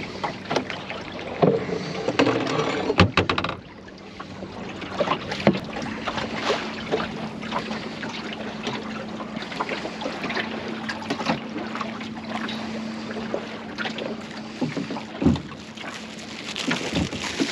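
Water splashing and lapping against the hull of a small wooden sailing dinghy, a Welsford Navigator, under way, with scattered knocks and clicks from the boat. It is louder for the first three or so seconds, then settles lower.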